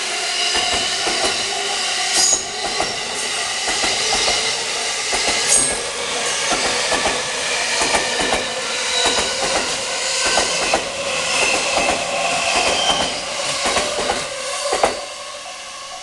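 A JR Yokosuka Line electric commuter train passes close by, its wheels clicking irregularly over the rail joints. The sound drops away near the end as the last car clears.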